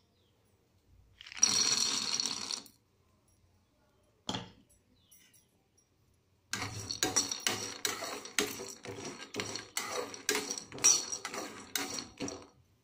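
Raw peanuts poured into an empty metal kadai, a dense rattle lasting about a second. After a pause, a spatula stirs the peanuts around the dry pan in quick clattering, scraping strokes for about six seconds as they dry-roast.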